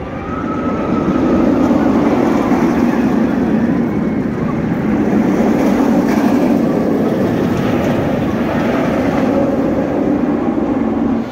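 Steel roller coaster train, a B&M inverted coaster, running along its track: a loud, steady roar that cuts off suddenly at the end.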